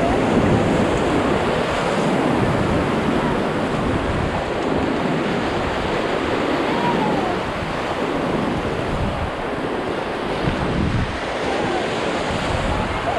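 Whitewater river rushing steadily around a raft in the rapids, with wind buffeting the microphone.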